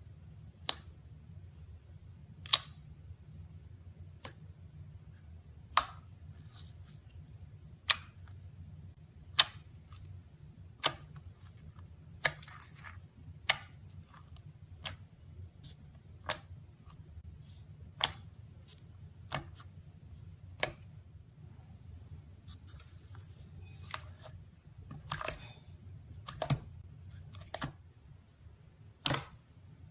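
Slime being pressed and handled, giving sharp popping clicks about every second and a half, coming closer together near the end.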